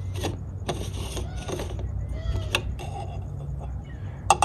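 Billet aluminium power-steering reservoir cap being unscrewed by hand: a run of short scrapes and small squeaks from the threads and O-ring turning, then a few sharp clicks near the end as the cap and its dipstick come free of the reservoir neck.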